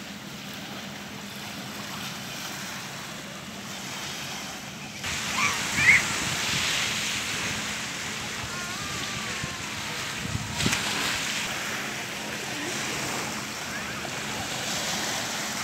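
Lakeshore ambience: steady wind on the microphone and lake water, with faint distant voices of bathers. A brief sharp high sound about six seconds in is the loudest moment, and a low thump comes about ten and a half seconds in.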